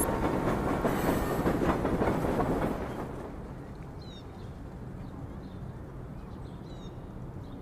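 Elevated metro train running past with a steady rumble and rattle, which fades out about three seconds in. Quieter outdoor background follows, with a few short bird chirps.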